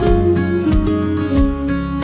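Instrumental passage of a song, with no singing: strummed acoustic guitar over a steady beat, about three beats every two seconds.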